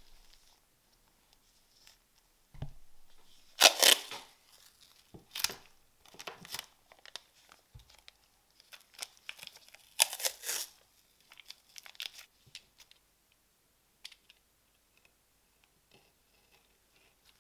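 Hands working on a small rusty model car, making short bursts of tearing and crinkling with light clicks between quiet gaps. The two loudest bursts come about four and ten seconds in.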